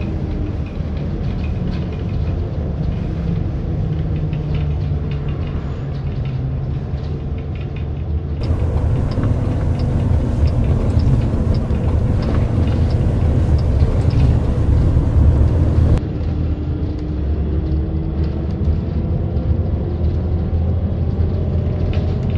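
Steady road and tyre rumble inside a moving Waymo self-driving car, with a faint electric-motor whine falling in pitch near the start and rising near the end. For several seconds in the middle the rumble grows louder and a light, regular ticking runs under twice a second.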